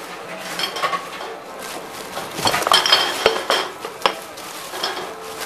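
Glass bottles clinking and clattering as they are fed into and handled by a Tomra T-63 reverse vending machine. The clinks come in a run that is busiest and loudest around the middle.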